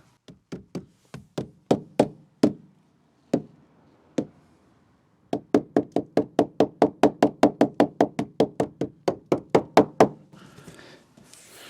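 Hammer giving light taps to a rubber door seal strip to seat it properly. Scattered taps at first, then a short pause, then a quick even run of about five taps a second that stops near the end.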